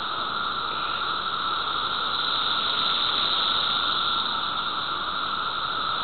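Chorus of seventeen-year periodical cicadas: a steady, unbroken drone with a lower and a higher pitch band that holds level throughout.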